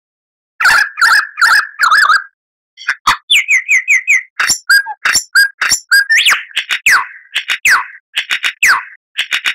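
Lyrebird singing a varied run of phrases: three warbling notes, a short pause, then quick clicks, a fast trill and a string of repeated whistles that fall sharply in pitch.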